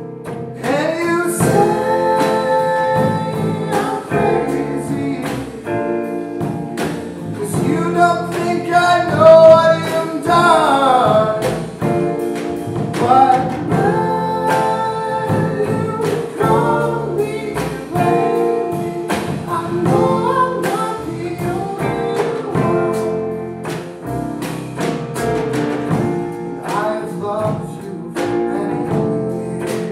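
Live band playing a song: a singer's voice gliding over drums, upright bass, keyboard and electric guitar.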